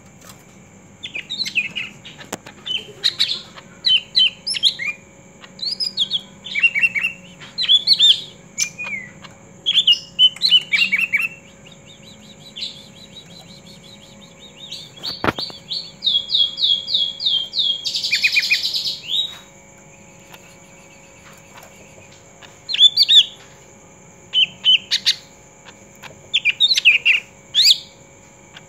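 Cucak ijo (green leafbird) singing in short bursts of varied chirps and whistles, with a fast run of repeated notes about sixteen seconds in, then a harsh raspy burst.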